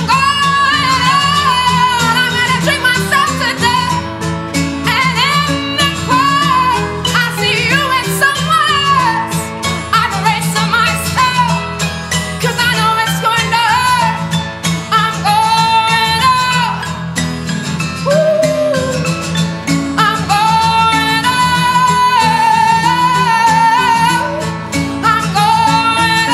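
Live band music with a woman singing long, wavering held notes over guitar and a steady low accompaniment.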